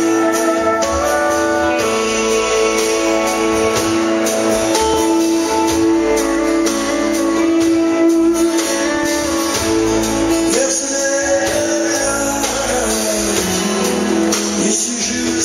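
Live country band playing: strummed acoustic guitars, electric guitars and a drum kit.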